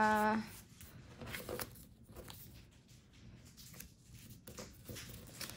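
Sticker sheets being leafed through and handled: faint paper rustling with a few soft taps and clicks.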